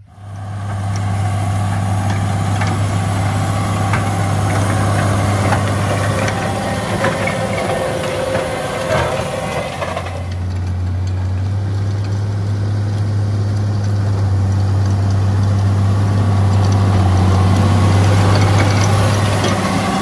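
A large farm tractor's diesel engine running steadily under load as it pulls a power-harrow seed drill, with rattling and clatter from the drill working the soil. The engine tone changes abruptly about halfway through.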